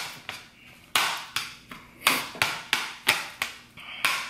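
Metal fork repeatedly knocking and scraping against a plate while mixing rice, about two to three sharp taps a second with a brief pause about half a second in.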